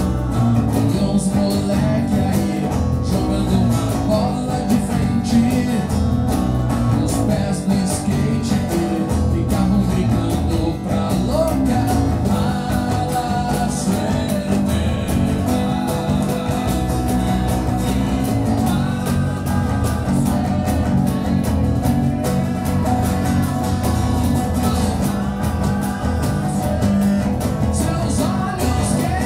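Live acoustic rock song: a strummed acoustic guitar with a man singing over it.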